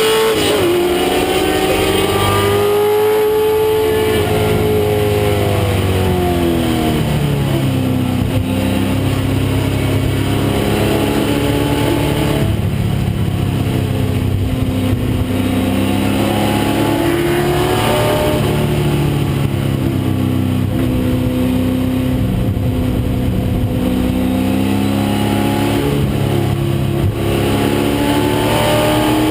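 1996 Ford Mustang race car's engine running hard on track, its pitch falling and rising several times as the revs drop and build again, over steady wind and road noise.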